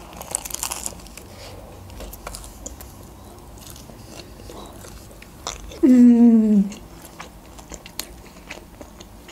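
A bite into a burrito wrapped in stiff, dried-out lavash, followed by chewing with small wet mouth clicks. About six seconds in, a short hummed "mmm" falling in pitch, the loudest sound.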